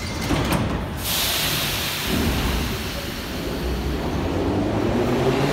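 Metro train doors shutting with a couple of knocks, then a sudden loud hiss of compressed air as the train's brakes release. From about four and a half seconds in, the traction motors start a rising whine as the 81-717/714-type train begins to pull out of the station.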